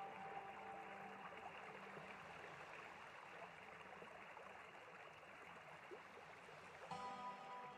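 Near silence: a faint steady hiss, with soft background music with held tones coming back in near the end.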